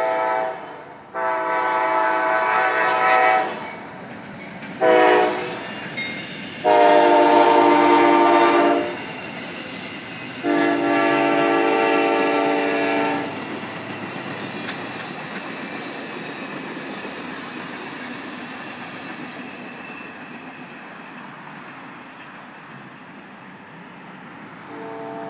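Amtrak Crescent locomotive horn sounding for a road grade crossing: the tail of one long chord blast, then a long, a short and two more long blasts, the last held nearly three seconds. Then the passenger train passing with a steady noise that slowly fades, and a fainter horn blast starting near the end.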